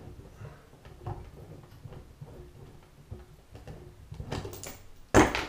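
Adjustable pipe slice being worked around a 10mm copper pipe to cut it: light irregular scraping and clicking, then a short sharp metal clatter about five seconds in, the loudest sound.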